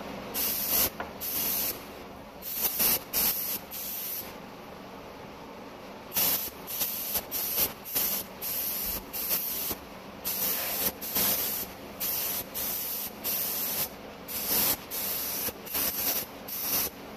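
Gravity-feed HVLP paint spray gun spraying automotive paint in many short trigger-pull bursts of compressed-air hiss, each a fraction of a second long. The bursts break off for about two seconds roughly a third of the way through.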